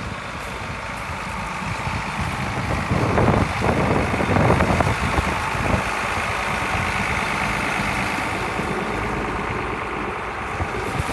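John Deere farm tractor's diesel engine idling steadily, with a louder, rougher stretch a few seconds in.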